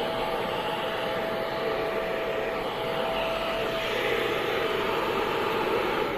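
Gaabor vacuum cleaner running steadily, its motor giving a constant whine over the rush of suction.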